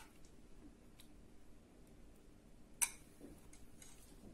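Quiet room tone with a few faint, sharp clicks, the loudest near three seconds in.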